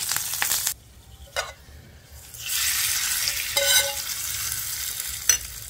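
Hot oil sizzling as dry red chillies and curry leaves drop into a pan of browned cumin, a short hiss. Then a longer sizzle as the hot tempering is spooned from the pan onto the chutney, with a metal spoon scraping and clicking against the pan.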